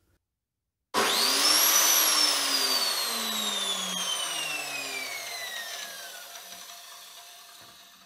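Milwaukee metal-cutting chop saw switched on with a short pull of the trigger about a second in: the motor whines up to speed within a second, then, with the trigger let go, the wheel coasts down with a slowly falling, fading whine. The freshly replaced switch now turns the saw off again.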